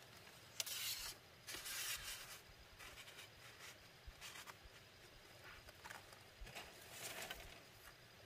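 Thin split-bamboo strips being handled, shuffled and scraped over dry dirt ground by gloved hands. Faint rustling and scraping comes in short bursts, the loudest about one and two seconds in, with another near seven seconds.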